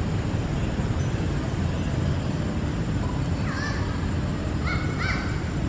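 Steady low outdoor rumble with a few short, harsh animal calls over it, about three and a half to five seconds in; the first falls in pitch.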